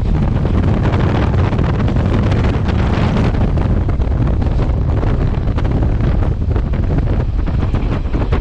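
Heavy wind buffeting on the microphone held out of a moving train, over the low running rumble of the Class S11 diesel multiple unit on the track.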